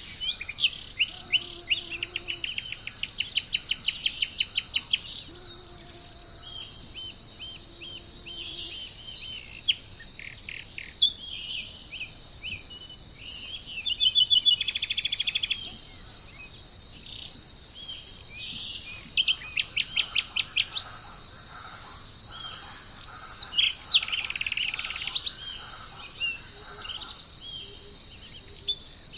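Wild birds chirping and singing in quick trills of repeated notes, over a steady high drone of insects.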